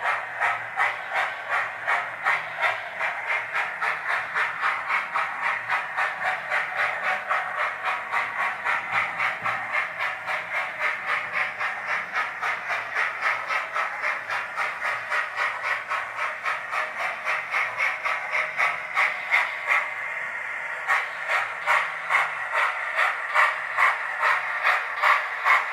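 Hornby TTS sound decoder in a Lord Nelson model steam locomotive playing a steady steam chuff with hiss through its small onboard speaker, about two to three beats a second as the model runs. The beats come through louder in the last few seconds.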